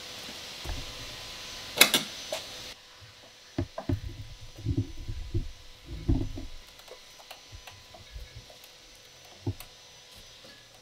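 Wooden knocks and clunks from a pallet-wood bar cart on wheels as it is handled and its hinged lid is moved. There is a sharp clack about two seconds in, then a run of low thuds and knocks for about three seconds, then scattered light clicks.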